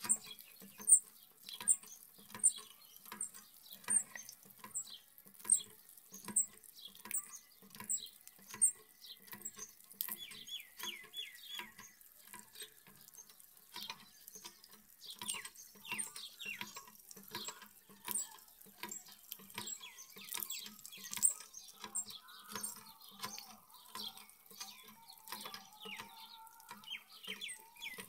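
Thin stream of water splashing onto a wet, muddy path, with a rose-ringed parakeet bathing in it. A soft knock repeats about once a second through the first half.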